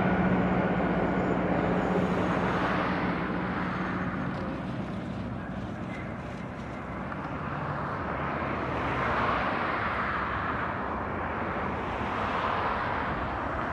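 Airbus A320neo (A320-251N) jet airliner with CFM LEAP-1A engines, heard landing: a steady rush of jet and air noise. A low hum fades out in the first few seconds, and the noise dips and then swells again about nine seconds in.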